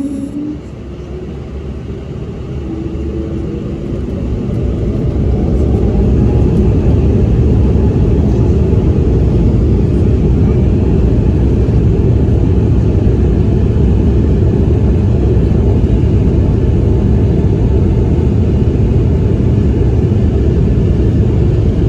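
Embraer E190-E2's Pratt & Whitney PW1900G geared turbofans spooling up for takeoff: a whine rises in pitch over the first few seconds as the sound grows louder. It then settles into a loud, steady rumble at takeoff thrust.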